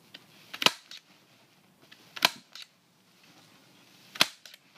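Bostitch hand staple gun firing three times into foil-faced fiberglass duct board, stapling a seam closed. There are three sharp snaps about a second and a half to two seconds apart, each followed by a fainter click.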